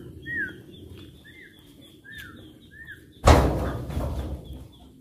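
A heavy oil palm fruit bunch thrown into the raised steel bed of a dump truck lands with a loud thud about three seconds in, followed by a rumble that dies away over about a second and a half. Before it, a bird calls repeatedly with short rising-and-falling whistles.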